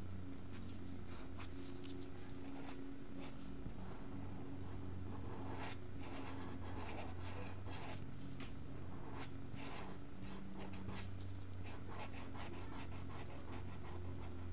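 Felt-tip marker scratching across paper in short colouring strokes, sparse at first and coming thick and fast from about six seconds in, over a steady low hum.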